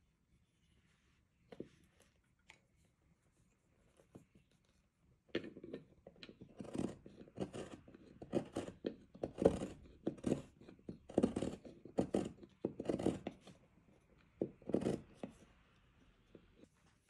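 Hand carving chisel paring hard Japanese zelkova (keyaki) wood: a run of short scraping cuts, about two a second, starting about five seconds in and stopping shortly before the end. A few light handling taps come first.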